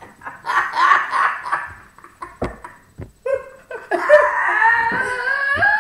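Two boys laughing hard: quick bursts of laughter, then a long, high, wavering stretch near the end.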